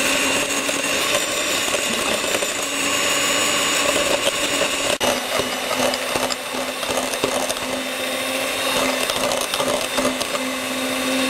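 Electric hand mixer running at a steady speed, its twin beaters whipping chilled whipping cream and milk as it thickens into whipped cream.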